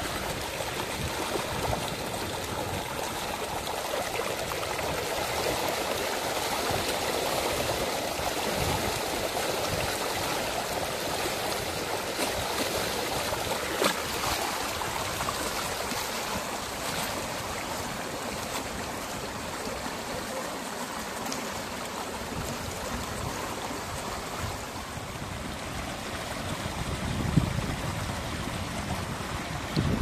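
Steady rushing of running water, like a stream, with a few faint clicks and a dull thump near the end.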